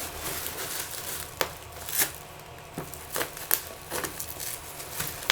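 Parcel packaging being torn and crinkled open by hand, with scattered sharp crackles and rustles.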